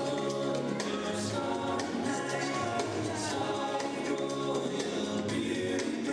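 Church choir singing a Christmas piece in sustained, changing chords.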